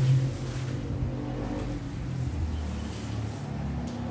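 A low, steady motor hum, with a deeper tone joining about one and a half seconds in and dropping out near the end.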